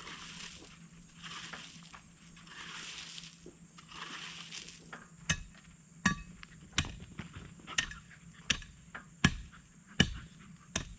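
Shovelling gravel: crunching, scraping scoops about every second and a half, then from about halfway a steady run of sharp knocks, a little more than one a second.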